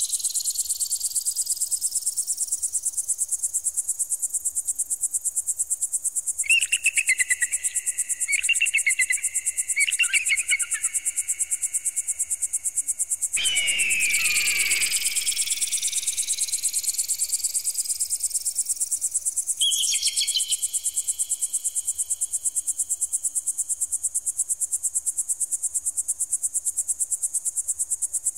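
Electronic bird-repeller sound: a continuous, rapid, high-pitched pulsing buzz with slow rising sweeps through it. Clusters of warbling electronic chirps come in twice, and a short whoosh comes a little before halfway.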